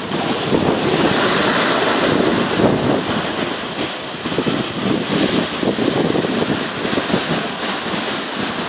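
Strong wind of about 35 knots buffeting the microphone over the rush of churning wake and breaking sea water behind a sailing catamaran's hulls. The noise rises and falls in surges, with no steady tone.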